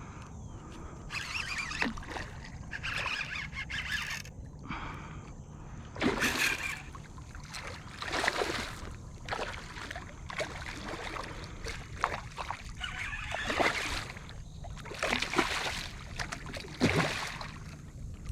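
Water splashing and sloshing around a kayak in irregular bursts, the strongest about six seconds in and near the end.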